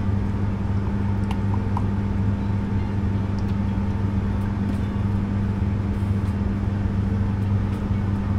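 Steady low hum of a ship's machinery, with a few faint clicks over it.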